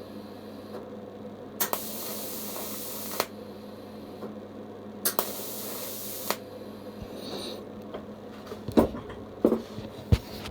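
TIG welding arc at about 30 amps on thin copper tube, hissing in two short bursts, each starting with a sharp click. A few knocks of handling follow near the end. The tube is running hot and burning through at this current.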